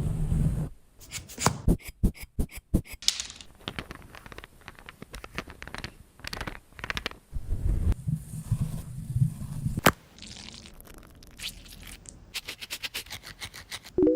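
Close-up dog-grooming sounds: irregular short scraping and clicking strokes, with one sharp click about ten seconds in and low rumbling handling noise in a couple of places.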